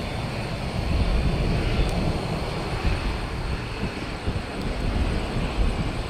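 A Boeing C-17A Globemaster III's four turbofan engines make a steady, deep rumble as the aircraft approaches on final for landing.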